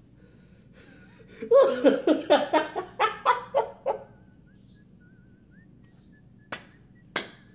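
A man laughing, about ten quick 'ha' pulses falling in pitch over two or three seconds: an exasperated laugh at a beer he finds bad. Near the end come two sharp slaps about half a second apart.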